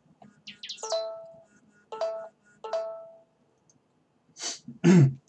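Phone message notification chime sounding three times in about two seconds, each a short bright ding with a brief ringing tone: messages arriving through BlackBerry Messenger on an Android phone. Near the end come two short louder noises, the second the loudest.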